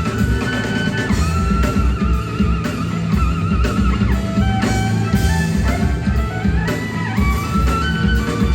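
Live rock band playing an instrumental passage: a lead guitar melody with wavering vibrato over bass and drums.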